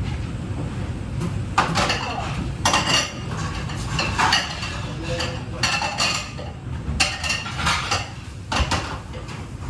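Crockery and metal utensils clattering and clinking in a busy kitchen: about a dozen sharp knocks, each with a short ring, over a steady low hum.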